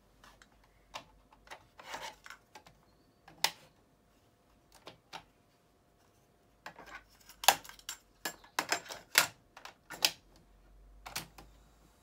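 Plastic clicks and clacks from a Panasonic RX-FW18L boombox's cassette decks as they are handled: a deck door swung open, a cassette taken out and slotted in, and the doors snapped shut. The clicks are scattered, with a dense, louder cluster in the second half.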